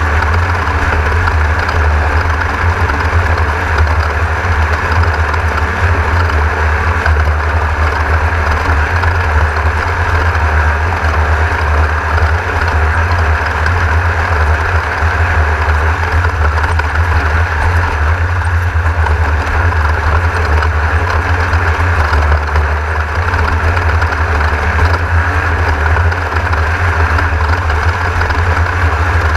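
Steady deep engine drone heard from inside a 1600-class off-road race car, whose air-cooled VW 1600 flat-four runs at an even pace with no clear revving up or down.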